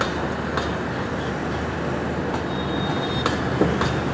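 The Gatimaan Express's passenger coaches rolling out of the station over the tracks: a steady rumble with a few short clicks from the wheels, and a thin high wheel squeal for about a second, roughly two and a half seconds in.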